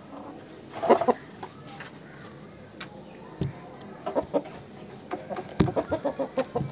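Chicken clucking: a louder call about a second in, then runs of quick, short clucks in the second half, with a few sharp clicks between them.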